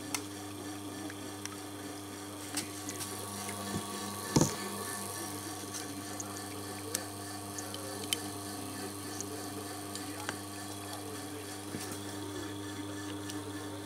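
Steady hum of a reverse-osmosis filter's booster pump running, with scattered light clicks and one sharper knock about four seconds in as a hex key works the screws around the pump head, which is leaking.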